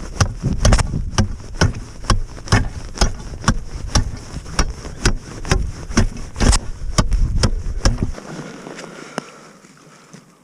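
Heavy ice chisel chopping a hole through thin early-season ice, about two to three sharp strikes a second, stopping about eight seconds in. The ice is only about two to three inches thick, and the chisel goes through it easily.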